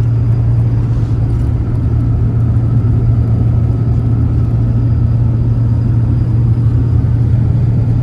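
1992 Holden VP Commodore running along at steady road speed: a constant low engine and road drone that does not change.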